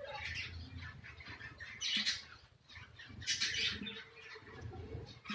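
Conures squawking: a few short, harsh squawks, the loudest about two seconds and three and a half seconds in.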